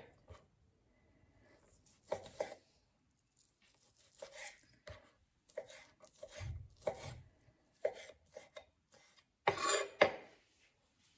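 Kitchen knife cutting cooked chicken fillet into cubes on a wooden cutting board: irregular knife strokes knocking on the board, with the loudest few strokes close together near the end.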